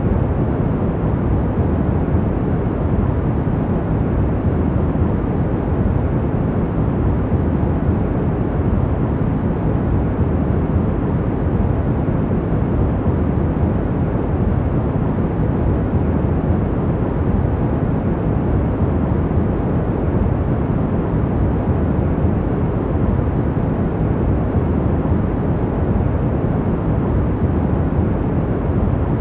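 Steady sleep noise: an even, unchanging hiss with no rhythm or events, weighted toward the low end so it sounds deep rather than bright.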